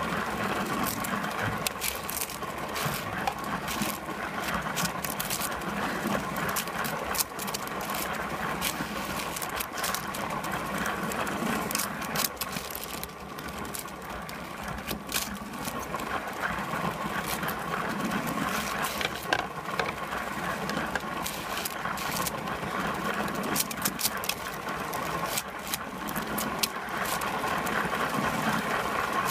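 Small electric motor of a LEGO toy train running steadily, with many clicks and rattles.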